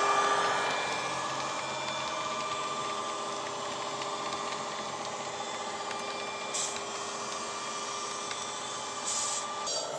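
Diesel engine sound of a Class 66, played by an ESU LokSound decoder through the small speaker of a Bachmann OO-gauge model, running steadily and dropping off within the first second as the locomotive pulls away. It runs under the rumble of model wagons on the track, with a couple of short high squeals in the second half.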